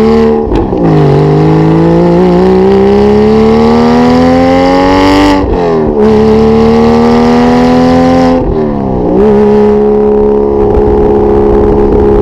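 Porsche 987.2 Boxster's flat-six through a SOUL valved sport exhaust, accelerating and shifting up three times: the engine note climbs, drops sharply shortly after the start, again a little past the middle and again about three-quarters through, then holds steady.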